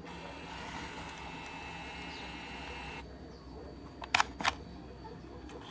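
DYMO LabelManager 280 label maker printing: a steady motor whir as the tape feeds out, stopping abruptly after about three seconds. Two sharp clicks follow a little after four seconds.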